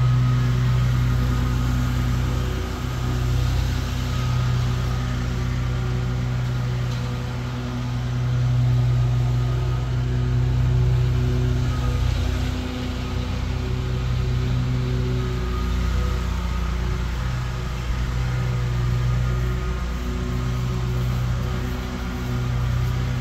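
Lawn mower engine running steadily at a constant speed, with a low, even hum that swells and eases slightly.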